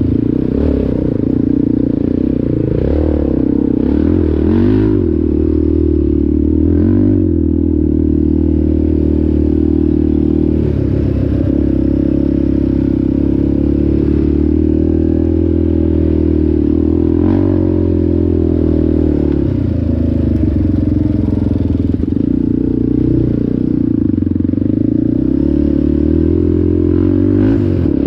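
ATV engine running under way, its pitch dipping and rising several times with the throttle, with occasional clatter.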